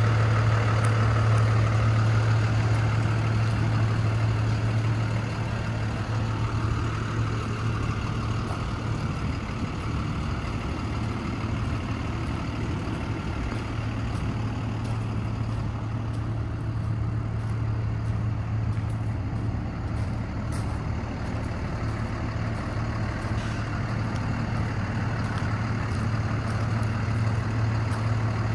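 Cummins ISB 6.7 inline-six diesel of an International 4300 water truck idling with a steady low hum, a little quieter after about five seconds.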